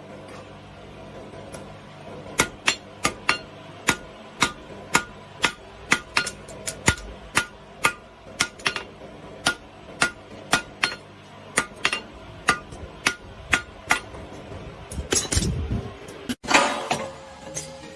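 A hammer striking metal in a steady rhythm, about two blows a second, each blow ringing briefly. Near the end the blows give way to a louder, rougher scraping noise.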